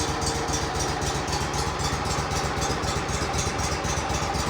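An old Grasshopper mower's engine idling steadily, just after a cold start.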